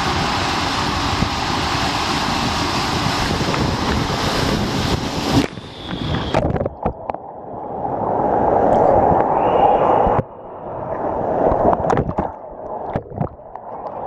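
Steady rushing of water and air inside an enclosed water slide tube, picked up by a camera riding down it. About five and a half seconds in, the rush cuts off suddenly and gives way to muffled water sloshing with scattered knocks and splashes.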